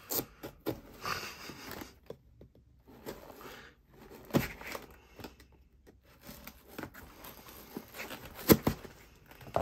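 A folding knife's blade stabbing and scraping into clear packing tape on a cardboard box: crackling and tearing of the tape and rustling of the cardboard, with a few sharp knocks, the loudest near the end.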